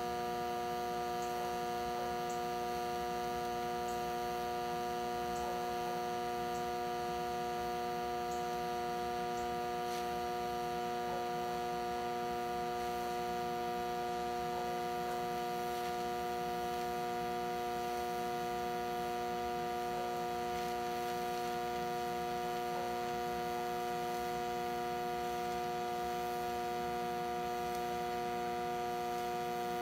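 Hobart TIG welder arc running steadily on a steel rock slider tube: a constant hum made of several steady tones that does not change in level or pitch.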